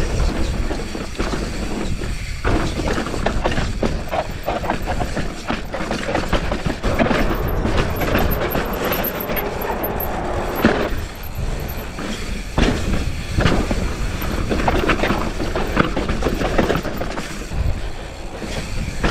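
Mountain bike rattling and clattering over a dirt trail at speed, with tyre noise on the dirt and many quick knocks from the bike over bumps.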